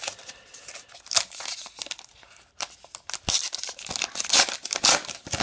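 A trading-card pack's wrapper being torn open and crinkled by hand: a string of sharp rips and crackles, one about a second in and a busy run of them in the second half.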